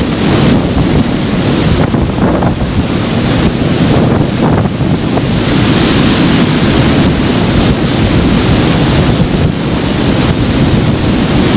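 River in flood rushing through and pouring over a barrage weir, a loud, steady roar of water, with wind buffeting the phone's microphone.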